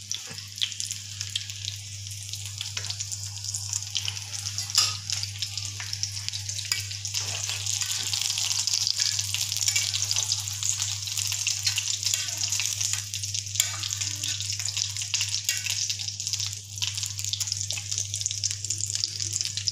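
Egg-dipped potato cutlets (aloo tikki) frying in hot oil in a pan: a steady sizzle with scattered small crackles and pops, over a low steady hum.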